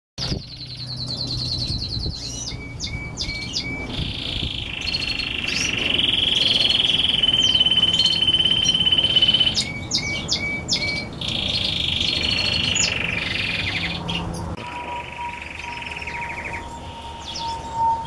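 Red grey-wing canary singing: fast trills and rolling phrases built of quick repeated notes, with a long unbroken roll in the middle of the song.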